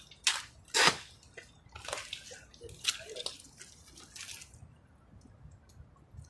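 Shallow muddy water splashing and sloshing in about five short bursts, the sound of hands working in the water.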